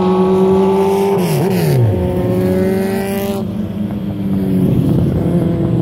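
High-revving racing engines running at a steady high pitch. About a second in, one engine drops sharply in pitch. The steady tones fade at about the midpoint, and a rougher engine sound builds again near the end.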